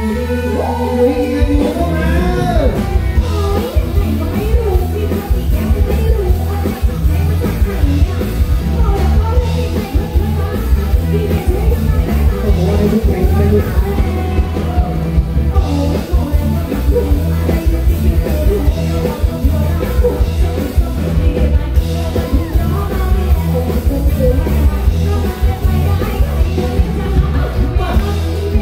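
Live band music with singers, played loud through a stage PA: heavy bass and a steady drum beat under the vocals.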